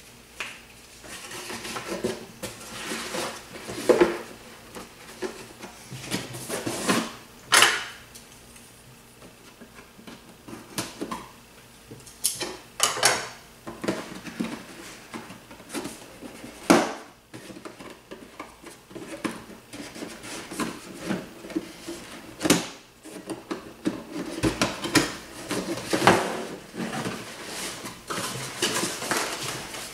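Hard plastic drone parts and their packaging being handled and set down: irregular clicks, knocks and clatter with rustling in between.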